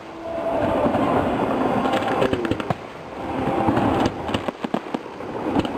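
Fireworks display going off: a continuous rumble of bursts with a few brief whistles, then a rapid run of sharp cracks from about four seconds in.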